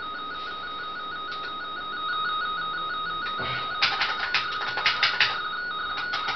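RTTY radioteletype audio signal: two close tones switching rapidly back and forth in a steady warble. Irregular clicks join it from about four seconds in.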